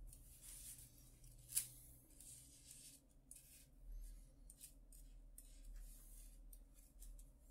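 Near silence with faint handling sounds: fingers moving a thin metal chain bracelet with feathers on a wooden table, making soft scattered clicks and rubbing. One sharper click comes about one and a half seconds in.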